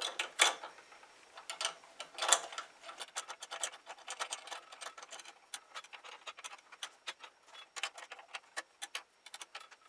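A screw being driven in by hand with a screwdriver to fasten a replacement part on a DeWalt mitre saw: a few louder clicks at first, then a long run of light, irregular ticking clicks, several a second.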